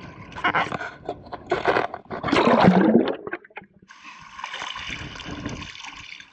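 Shallow seawater sloshing and splashing as a shrimp push net is swept through it, loudest a little over two seconds in, then a steadier rush of water as the net is lifted out and water streams through its mesh.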